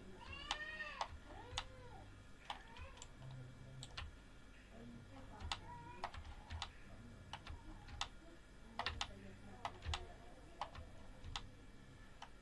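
Computer mouse and keyboard clicking while selecting in a 3D program: sharp single clicks at irregular intervals, roughly one a second, now and then two close together.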